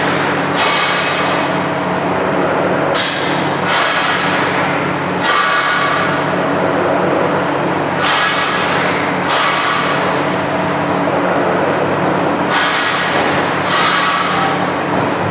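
Automatic punching machine working steel plate: sharp metallic punch strokes with a short ringing tail, coming in pairs about every two and a half to three seconds, over the machine's steady motor hum.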